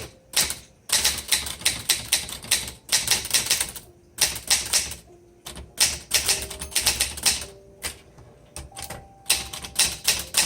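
1960s Underwood 21 manual typewriter being typed on: rapid runs of keystrokes, the type bars clacking against the platen, in several bursts separated by short pauses.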